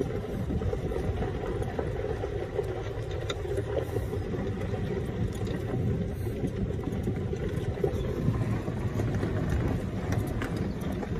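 Golf cart driving along a campground road: a steady low rumble from the cart and its tyres on the road.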